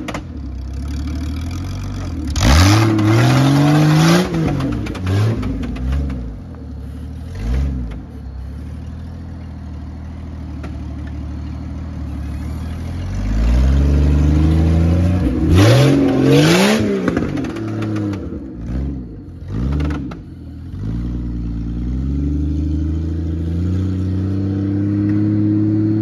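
Jeep Cherokee XJ engine being revved hard in the mud, its pitch rising and falling over and over. There are two long, loud pulls with a harsh rush of noise on top, short throttle blips between them, and a slow climb in revs near the end.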